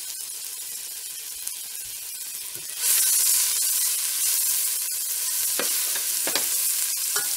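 Diced onion and celery sizzling in hot avocado oil in a pot, the sizzle growing louder about three seconds in as a spatula stirs them, with a few short scrapes of the spatula.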